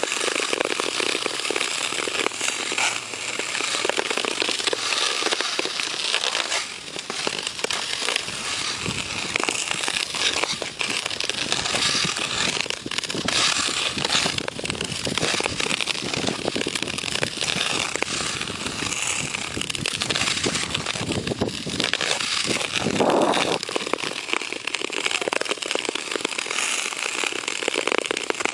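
Hockey skate blades cutting and scraping across the ice close to the microphone: a continuous crackling scrape dotted with many sharp clicks as the blades bite and glide, stride after stride.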